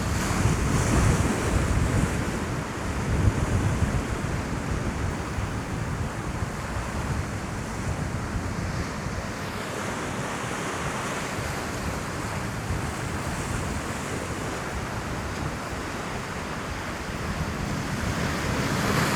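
Heavy sea surging and breaking against rocks, a steady wash of surf, with wind buffeting the microphone. It is loudest and most rumbling in the first few seconds.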